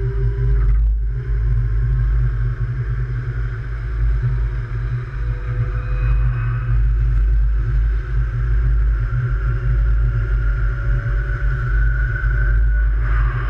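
Light rail train running and picking up speed, its electric drive whining in thin tones that slowly rise in pitch over a heavy, steady low rumble.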